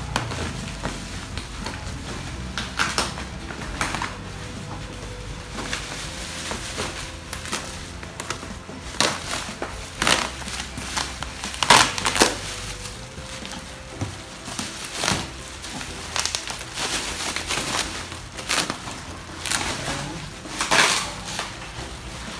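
Bubble wrap being cut with scissors and pulled off a cardboard-wrapped package, crinkling in irregular bursts, loudest about halfway through.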